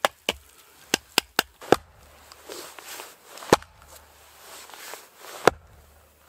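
Firewood being chopped and split with an axe: a run of quick, sharp knocks in the first two seconds, then two heavy single blows about two seconds apart, the second the loudest.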